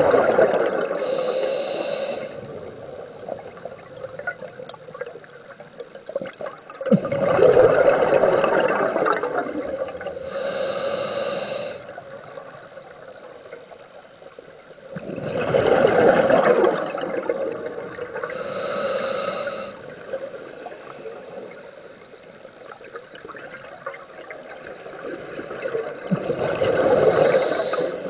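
Scuba diver breathing through a regulator underwater, about one breath every eight seconds. Each exhale is a few-second surge of bubbling, followed by a shorter hissing inhale with a whistling tone.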